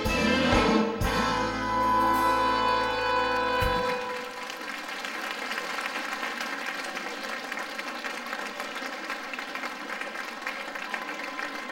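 A live big band with saxophones and brass ends a ballroom dance number on a long held final chord that cuts off about four seconds in. Audience applause follows.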